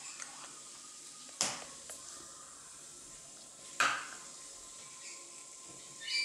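Two sharp clicks of a plastic tube knocking against a wooden tabletop, about two and a half seconds apart, over a faint steady hiss. A short high chirp comes right at the end.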